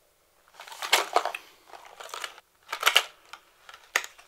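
A fishing lure's cardboard box and clear plastic insert being opened by hand: crackling and scraping of plastic and cardboard in three bursts, then a sharp click about four seconds in.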